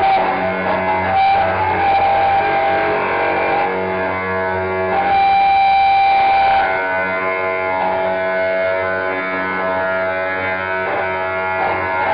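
Live noise music: a loud, dense wall of held droning tones with a plucked-string, guitar-like texture. A higher held tone stands out, loudest for about two seconds around the middle.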